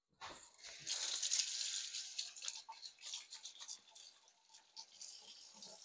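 Kitchen tap running into a sink as hands are washed under it. The water is loudest in the first couple of seconds, then gets lighter, with small splashes and clicks.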